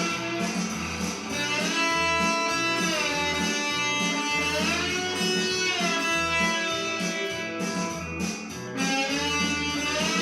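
Blues music: an electric guitar playing bending, sliding lead lines over a low bass pulse that repeats about once a second.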